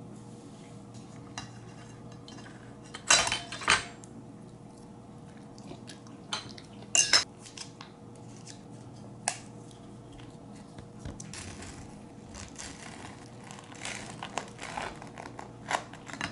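Cutlery and a plate clattering on a table: a few sharp clinks early, then softer, quick scraping and tapping as a knife cuts through a bagel near the end. A steady low hum runs underneath.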